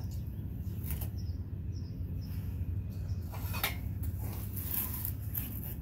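A few light clicks and taps of tools and small metal parts being handled, over a steady low rumble.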